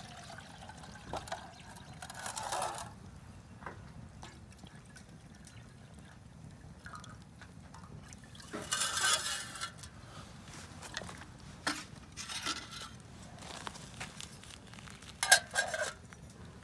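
Water poured from a canteen into a titanium canteen cup, splashing in several separate spurts. Near the end a sharp metal clink as the cup's titanium lid is set on it.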